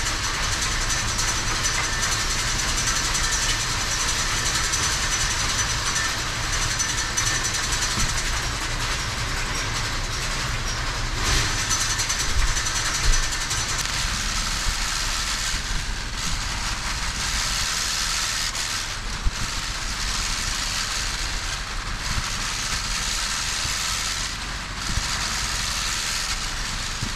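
Steady mechanical running noise, a continuous hiss and rattle of machinery, in a hayloft. It is broken a few times by dull thumps as small square hay bales are set down on the stack.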